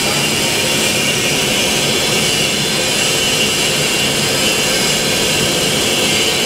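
Steady machinery noise of an artificial rice extruder production line running: a constant, even hiss with no breaks.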